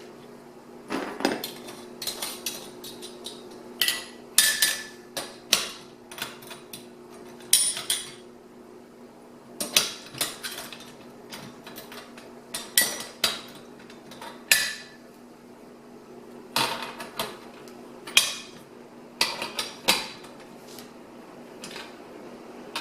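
Irregular metallic clinks and clicks as the bar clamps of a Granberg Alaskan chainsaw mill are handled and snugged up with a wrench, metal knocking lightly on metal. A faint steady hum sits underneath.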